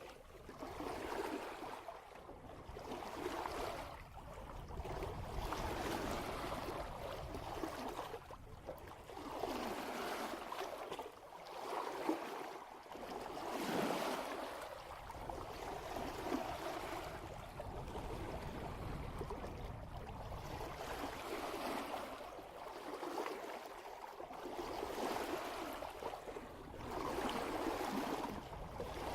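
Water rushing and splashing past a sailboat's bow at about 3 knots, surging and easing every few seconds as the hull meets the swells.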